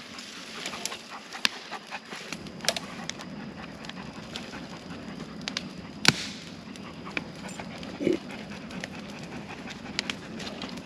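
A dog panting, with sharp crackles and pops from a burning stump and brush pile scattered through it; the loudest pop comes about six seconds in.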